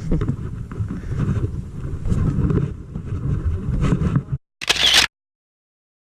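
Low, uneven rumble and handling noise on the microphone, typical of wind buffeting, with faint clicks. It breaks off at about four seconds, a brief hissy burst follows, and the sound cuts to dead silence as the recording stops.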